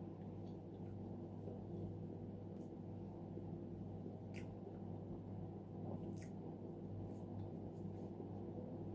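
Soft, moist chewing of boiled sweet potato, heard as a few faint wet mouth clicks, two of them clearer about four and six seconds in, over a steady low hum.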